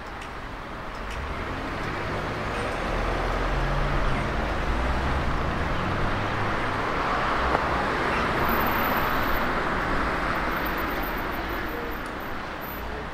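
Road traffic: a motor vehicle passing, its rumble and tyre noise swelling over several seconds and fading again toward the end.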